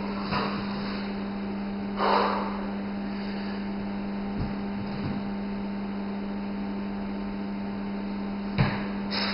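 Steady low electrical mains hum, with a few soft thumps and shuffles of hands and feet on a gym floor during a bodyweight warm-up drill. There is a brief rush of noise about two seconds in and a sharper thud near the end.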